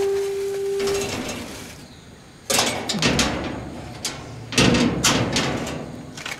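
A sheet-metal door rattled and banged by its latch and padlock, in two loud bursts of metallic clattering about two and a half and four and a half seconds in. A short steady tone comes in the first second.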